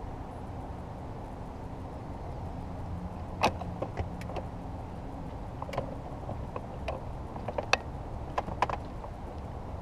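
A run of light, irregular clicks and knocks on a small fishing boat, about a dozen over some five seconds starting a few seconds in, over a steady low rumble.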